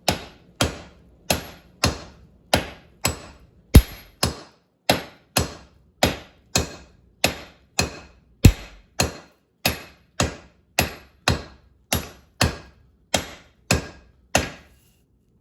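Blacksmith's hand hammer striking hot steel on an anvil in a steady rhythm of a little under two blows a second, each blow with a short metallic ring, while forging a hammer eye drift. Two blows, about four seconds and eight and a half seconds in, land harder than the rest.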